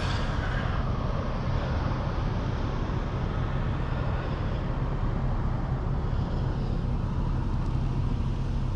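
Steady low rumble of motor vehicle noise, with no distinct events and an even level throughout.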